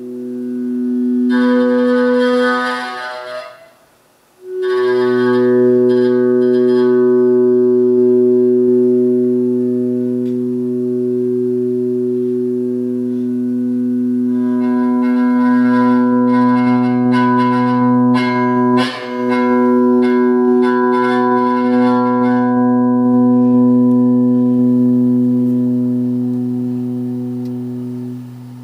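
Live accompaniment on a guitar played through effects: long, layered droning notes that swell and hold. The sound cuts out briefly about four seconds in and returns, with brighter notes shimmering over the drone midway through.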